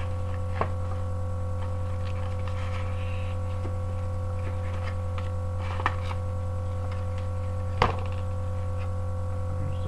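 A steady electrical hum with several steady higher tones, over which paper and a cardboard box are handled: faint rustling and three sharp clicks, the last and loudest about eight seconds in.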